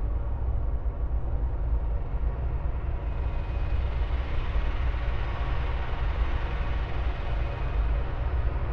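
Steady deep rumbling noise, heaviest in the bass, like the drone inside a moving vehicle or aircraft cabin; the hiss above it grows a little brighter about three seconds in.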